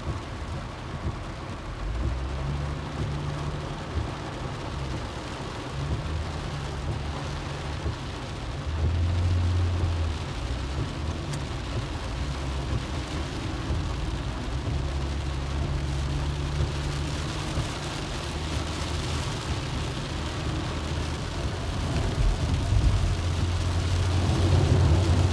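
Inside a car driving through heavy rain: a steady low engine and road drone, with the hiss of rain and tyres on the wet road. It grows a little louder near the end.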